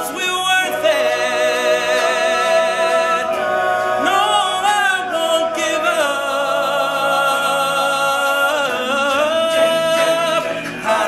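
All-male a cappella group singing in close harmony, no instruments, with a solo voice over the group. Long held chords with vibrato, changing every few seconds.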